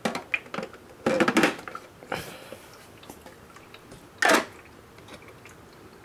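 Plastic clicks and knocks as the filled water tank of a Crane elephant ultrasonic humidifier is lowered and seated onto its base, with a short louder burst of noise about four seconds in.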